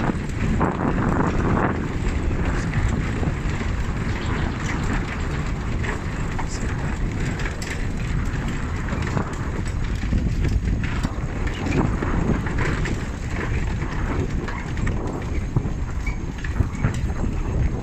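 A vehicle jolting along a rough dirt road: a steady rumble of wheels on the rutted surface with many small knocks and rattles.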